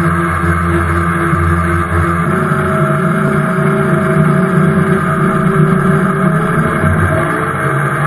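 Outboard motor running steadily under way, with water rushing in the churning wake behind it. Its pitch rises slightly near the end.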